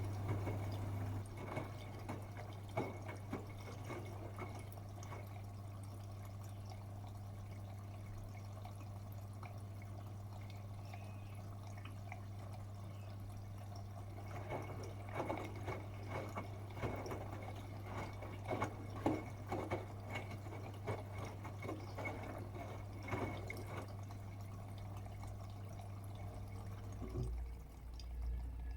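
Bosch Serie 8 WAW32590 front-loading washing machine mid-wash: water splashing and sloshing in the turning drum in two stretches with a quieter pause between, over a steady low hum that cuts out near the end.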